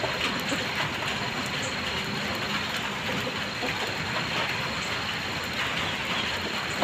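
Steady patter of light drizzling rain, many fine drops hitting together in an even hiss.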